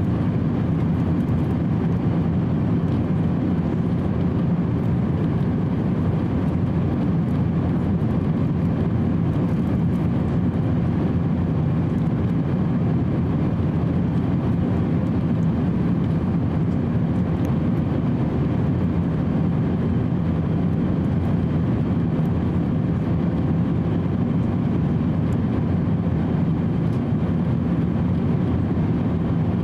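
Steady cabin noise inside an Airbus A350-900 airliner in cruise: an even, low rush of airflow and engine noise that does not change.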